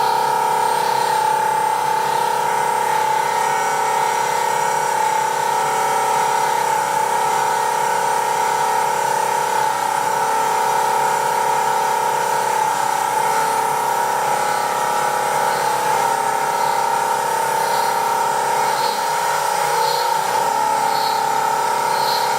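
Power tool running steadily with a high, unbroken whine, for example while cutting or machining board.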